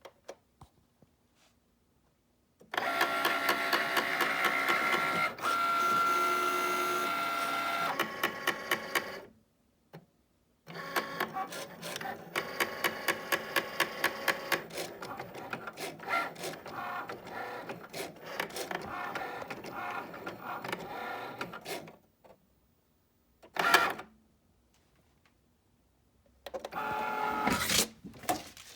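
New Cricut Maker cutting machine running its motors in stop-start runs, the longest about eleven seconds, with two short bursts near the end. A rapid train of clicks over a steady whine makes up the grinding noise, which is taken as a fault in a new machine.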